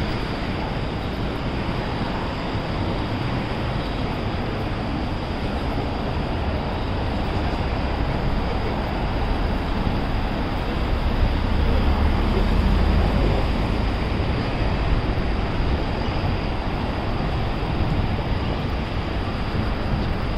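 City street traffic: a steady wash of road noise, with a low rumble swelling about halfway through as a vehicle passes close by.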